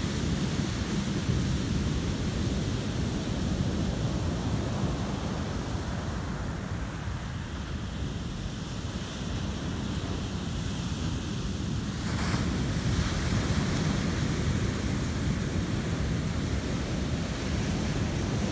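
Ocean surf breaking and washing up a sandy beach, with wind buffeting the microphone. The wash eases a little in the middle and builds again about twelve seconds in.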